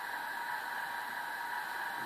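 Train Tech SFX20 sound capsule in an O gauge Class 37 model playing a recorded Class 37 diesel engine sound through its small speaker, running steadily with no changes.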